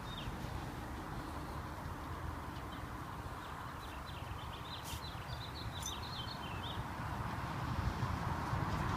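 Quiet outdoor ambience: a steady low background rumble, with a string of faint bird chirps in the middle.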